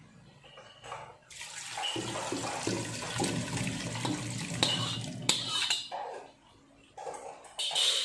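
Chicken feet and their soy-sauce braising liquid pouring and splashing from a pan into a pressure cooker for a few seconds. A few short knocks follow.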